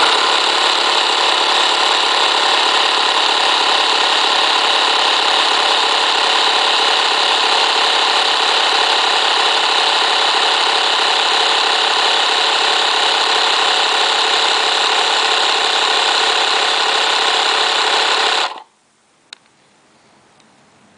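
AUPERTO 12 V DC portable electric air compressor running, very loud and steady, then switched off about eighteen seconds in; a single click follows shortly after.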